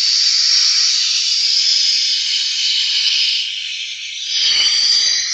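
Steady gritty scraping on a 400-grit sharpening stone, with a short dip about four seconds in and then a rougher stretch.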